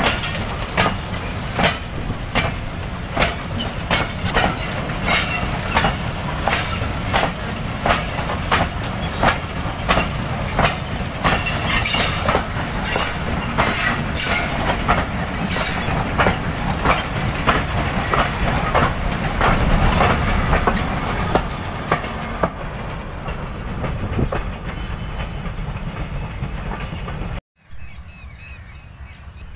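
Goods train of covered wagons rolling past close by: a heavy rumble with wheels clacking over rail joints in a steady rhythm. The clacking thins out toward the end, and near the end the sound drops away to quieter outdoor ambience.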